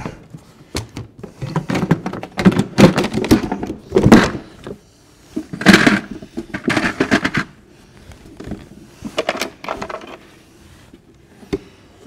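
Harley-Davidson Road King hard saddlebag being handled onto its mounts and fastened by hand: a run of knocks, thunks and rattles of the bag shell and its hardware, with a few more knocks later and a single click near the end.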